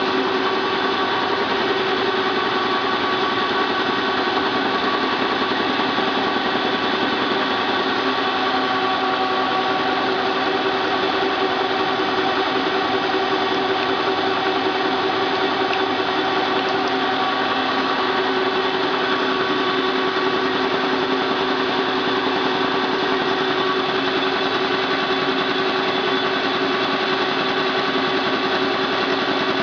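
Halm Super Jet two-color offset envelope press, rebuilt from the frame up, running steadily while feeding and printing envelopes: an even mechanical whir with a constant hum.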